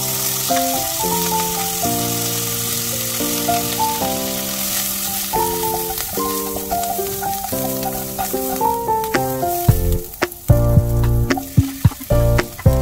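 Spices and chopped green chili frying in hot oil in a nonstick pan, with a steady sizzle that fades after about nine seconds. Over the last few seconds a spatula stirs and knocks against the pan. Instrumental background music plays throughout.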